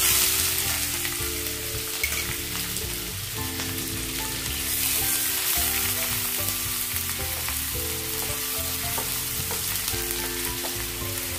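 Finely chopped onions sizzling in hot oil, the sizzle starting suddenly and then holding steady. Soft melodic background music plays underneath.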